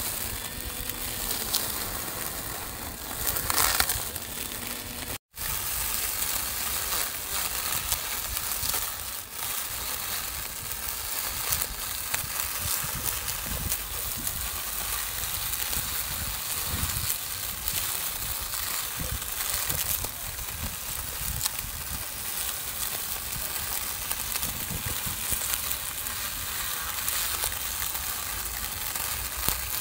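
A small electric grass trimmer running, its cutting head chopping through long grass with a steady crackling hiss. The sound breaks off for a moment about five seconds in.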